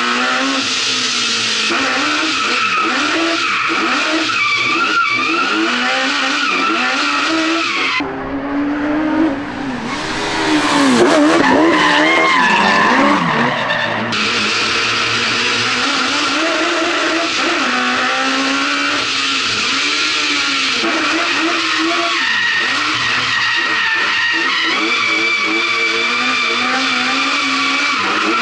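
Suzuki GSX1300R Hayabusa motorcycle inline-four, mounted mid-ship in a small kei car, revving up and down hard through a drift, with tyres squealing. It is mostly heard from inside the cabin; for several seconds in the middle it is heard from trackside, louder, with quick sweeping revs.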